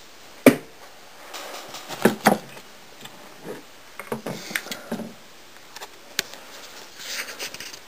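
Handling noises from a computer motherboard being moved about on a desk: a sharp knock about half a second in, then scattered small knocks, clicks and rustling.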